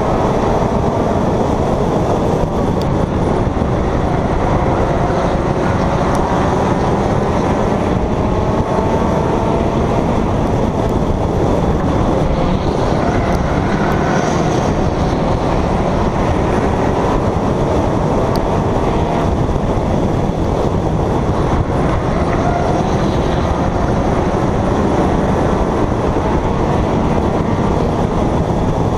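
Stock race car engine running hard at racing speed, heard from aboard the car, with a pack of other race cars around it: a loud, steady din of engine, wind and tyre noise. Engine pitch climbs over the first few seconds as the car accelerates.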